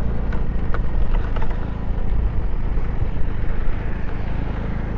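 Motorcycle engine running steadily while riding, under a steady rush of noise.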